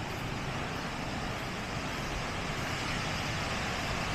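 Steady wash of ocean surf breaking on the beach, with wind buffeting the microphone, swelling slightly near the end.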